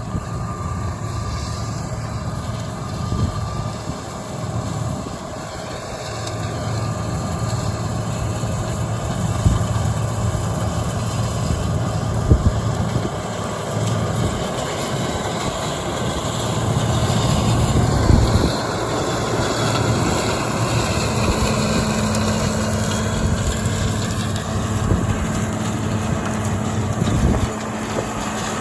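A farm vehicle's engine running steadily, a low rumble that swells and eases a little, with a steady hum joining about two-thirds of the way through.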